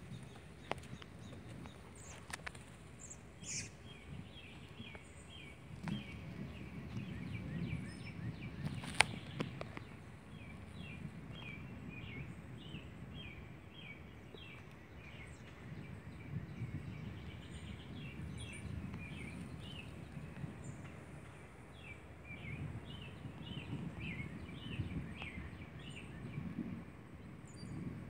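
Birds chirping outdoors, a long run of short, quick, falling notes. Under them is a low rumble that swells and fades several times, and there is a single sharp click about nine seconds in.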